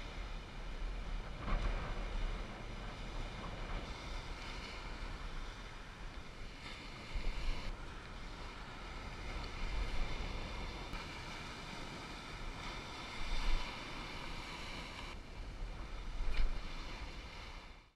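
Waves breaking and washing up a sandy shore, with wind buffeting the microphone in a low rumble; a few louder swells of surf come and go.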